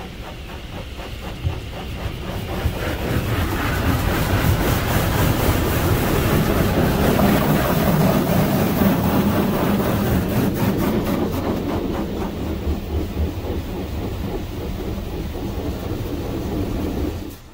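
Water from a Hydrospray Rainmaker touchless car wash spraying onto the car's roof and glass, heard from inside the car. It grows louder over the first few seconds as the moving spray arch passes overhead, eases off, then stops abruptly near the end.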